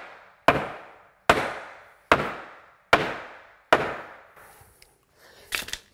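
Claw hammer striking the wooden stud of a door's rough opening: five hard blows about 0.8 s apart, each dying away quickly. The stud is being knocked over to make the opening the same width at bottom, middle and top.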